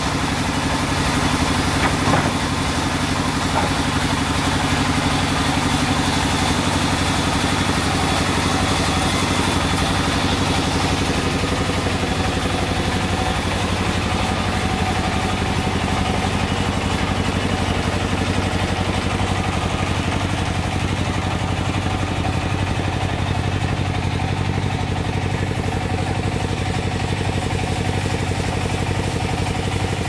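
A sawmill's engine idling steadily, running with no log in the saw.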